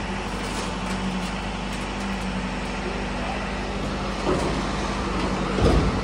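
Steady drone of motor vehicles running nearby, with a constant low engine hum, and a brief low thump near the end.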